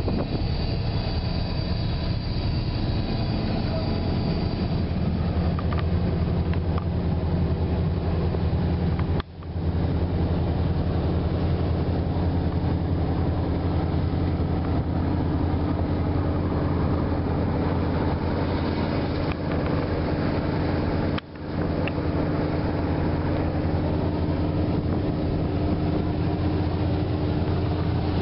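A boat's engine running at a steady low drone, with two brief dips about nine and twenty-one seconds in.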